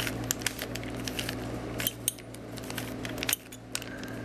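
A plastic Rubik's Cube turned by hand: quick, irregular clicks and clacks as its layers rotate, pausing briefly about three and a half seconds in, over a steady low hum.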